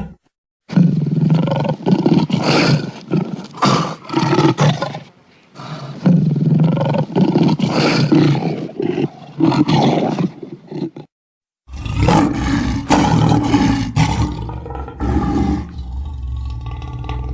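Sabertooth cat (Smilodon) creature sound effects: a series of roars in three separate takes, each cut off by a brief silence.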